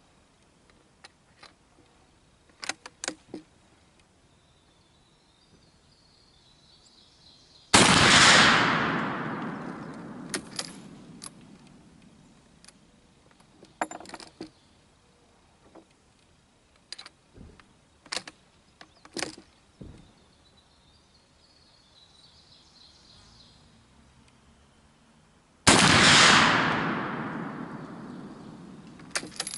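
Two shots from a Mauser 1871 (Gewehr 71) single-shot rifle firing black-powder 11mm Mauser cartridges with 385-grain bullets, about 18 seconds apart. Each is a sharp crack followed by a long tail that dies away over several seconds. Scattered short clicks and knocks fall between the shots.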